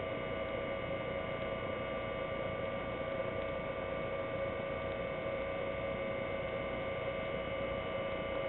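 Steady electrical hum: several constant high tones over a low hiss, unchanging throughout.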